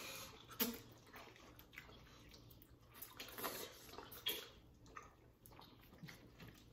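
Faint wet mouth sounds, scattered smacks and slurps, as several people chew and suck long fruit roll-up strips into their mouths without using their hands.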